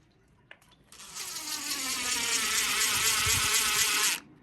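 Power drill running under load for about three seconds, starting about a second in, its buzzing whine wavering, while fixing a grab rail to brickwork.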